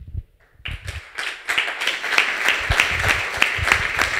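Audience applauding, many hands clapping, starting about a second in and quickly growing full and steady.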